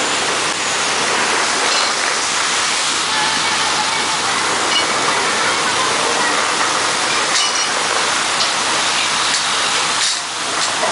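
Steady, rain-like splashing hiss of a purse seine packed with small fish thrashing at the water's surface.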